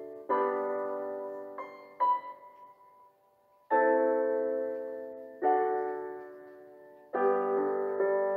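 Slow, gentle background piano music: chords struck one at a time, each left to fade, with a short near-silent pause about three seconds in.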